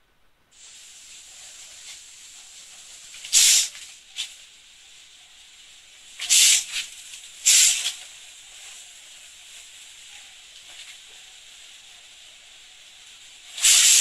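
A boxer's four short, sharp hissing exhales, one with each punch he throws, over a steady background hiss. The exhales come a few seconds apart, two of them about a second apart in the middle.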